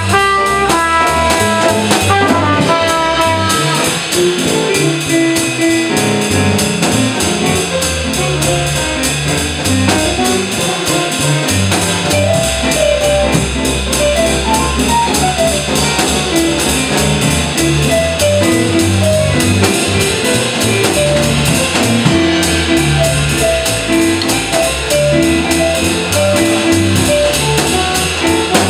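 Small jazz combo playing a swing tune: a trumpet phrase in the first few seconds, then a Roland keyboard soloing over a walking upright bass and a drum kit keeping swing time on the ride cymbal.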